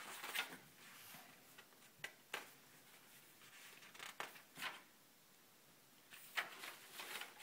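Paper pages of a report on a clipboard rustling as they are leafed through: a few faint, brief rustles spread through, with a busier cluster near the end.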